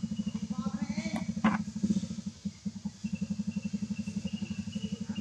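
A small engine running with a rapid, even low pulse, about a dozen beats a second, that drops away briefly a little past halfway. A few short high chirps and a sharp click come about a second in.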